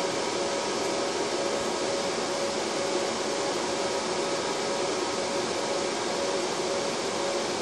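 Dell C6100 server's cooling fans running steadily while it boots, a constant whir with a few faint steady tones in it.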